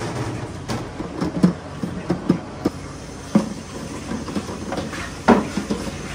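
Eggs clacking against one another and against a plastic bowl as they are lifted by hand out of a cardboard box: irregular light clacks with a sharper knock about five seconds in.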